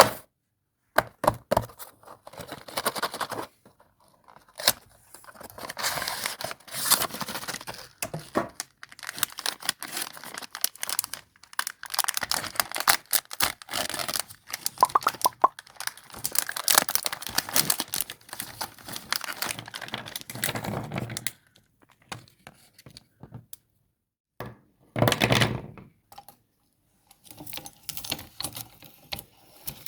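Meat grinder crushing chocolate sticks: irregular crunching and cracking in bursts, with sharp clicks and a few short pauses.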